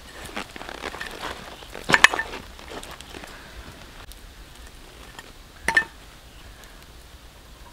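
A knife cutting between raw pork ribs on banana leaves, making small scrapes and clicks, with a sharp click about two seconds in and another near six seconds.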